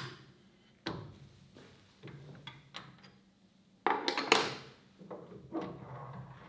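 Metal clicks and clunks as the cam locks of a lathe's camlock spindle nose are turned loose with a chuck key, then a louder scraping clunk about four seconds in as the heavy three-jaw chuck is pulled off the spindle nose, with a few more knocks after.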